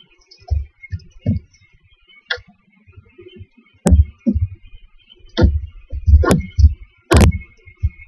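Irregular low thumps and a few sharp knocks from barn owl owlets moving about on the floor and walls of a wooden nest box, more frequent and louder in the second half, over a faint steady hiss.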